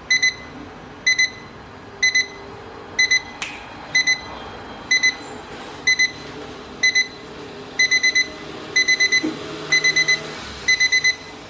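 Electronic alarm of a DT-6507 mirrored LED digital alarm clock, beeping high-pitched in pairs about once a second, then stepping up to quicker groups of three or four beeps about two-thirds of the way in. A single sharp click sounds about a third of the way in.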